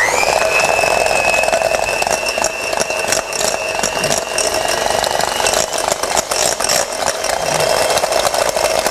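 Electric hand beater switching on with a quick rising whine, then running steadily with many small clicks, beating eggs into creamed butter.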